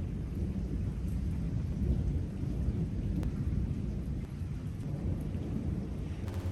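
Thunder rumbling through a storm with rain falling: a continuous deep rolling rumble over a faint hiss of rain.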